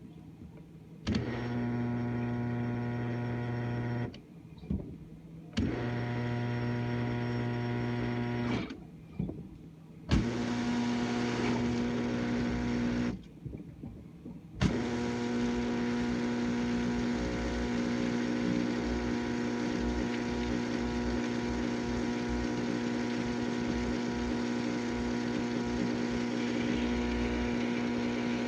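A GE dishwasher's pump motor humming. It switches on about a second in, cuts out and restarts three times over the next dozen seconds, then runs steadily.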